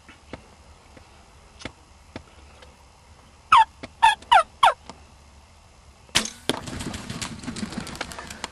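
Four loud, short turkey yelps, each falling in pitch. About six seconds in comes the sharp crack of a bow shot, and then the wild turkey gobbler's wings flap heavily as the arrowed bird flushes.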